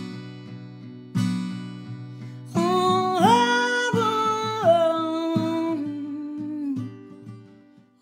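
Acoustic guitar strummed live with a wordless sung vocal that slides up to a held note about three seconds in and back down a couple of seconds later. The playing dies away near the end.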